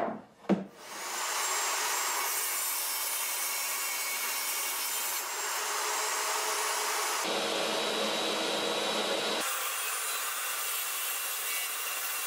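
Two short knocks, then a table saw starts up and spins up over about a second with a high whine, and runs steadily as a wooden panel on a crosscut sled is fed through the blade.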